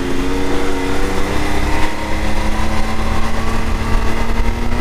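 Can-Am Maverick X3 DS Turbo side-by-side accelerating, its turbocharged three-cylinder engine held at a steady high pitch around 5100–5300 RPM while road speed climbs, with wind and road noise. Fitted with a PDrive primary clutch, it runs a lot quieter, with no clutch rattle at this speed.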